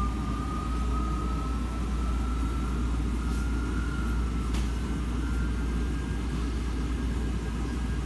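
Primus washing machine spinning up: a motor whine that rises slowly and steadily in pitch over a steady low rumble from the drum.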